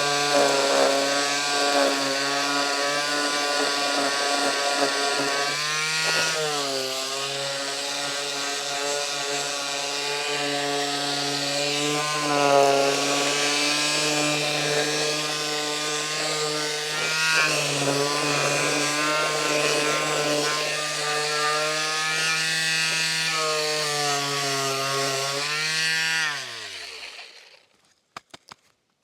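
Handheld electric power tool running at speed against a surface, its pitch sagging now and then under load. Near the end it is switched off and spins down with a falling whine.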